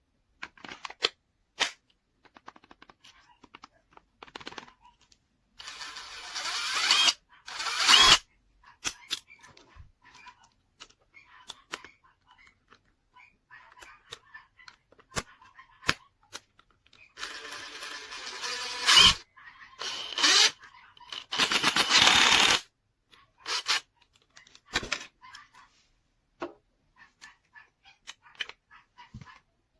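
Cordless impact wrench run in several short bursts of one to two seconds each, with clicks and knocks of the socket and lug nuts in between.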